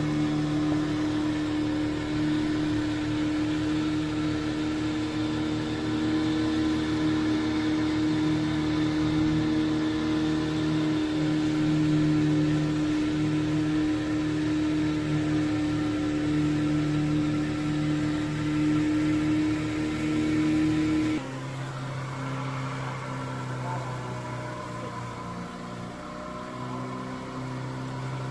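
Boat engine running steadily at an even pitch. About three quarters of the way through, the sound switches abruptly to a quieter, lower steady motor hum.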